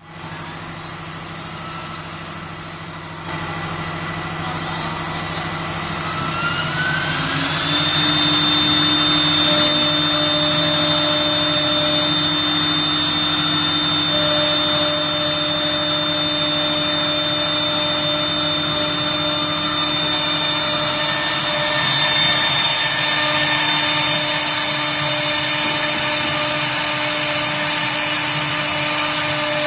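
HSD electric spindle of a CNC router spinning up, its whine rising in pitch for about two seconds, then running at steady speed with a high, even whine. More hiss joins about three quarters of the way through.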